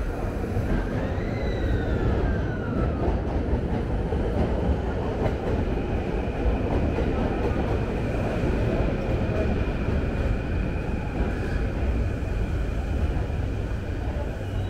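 Train running along a station platform with a steady rumble. A short falling whine comes about a second in, and a steady high tone joins it later.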